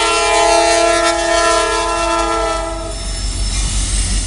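Locomotive air horn sounding one long blast, a chord of several notes that cuts off about three seconds in, over the low rumble of a passing freight train.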